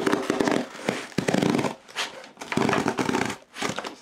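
Cardboard box's tear-off strip being ripped open along the lid, a rough crackling rip in several pulls.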